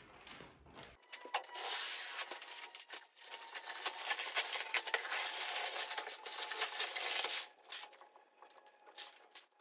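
Protective plastic film being peeled off a laser cutter's acrylic lid: a crackling, crinkling rustle that starts about a second in and dies down near the end.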